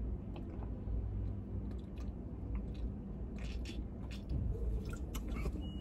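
A person chewing food, with scattered small crunches and clicks over a low steady hum.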